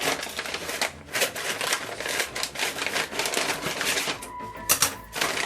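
Packaging being opened and handled by hand as a cable is unboxed: a dense run of crinkling, clicking and rattling.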